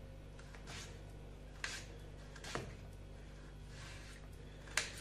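Kitchen knife slicing a raw potato into thin sticks on a wooden chopping board: a few separate short knocks as the blade cuts through and meets the board, irregularly spaced, the loudest near the end.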